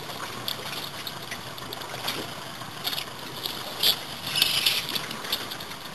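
Steady wind and water noise on an open boat, with a few short, high-pitched rasps about four seconds in.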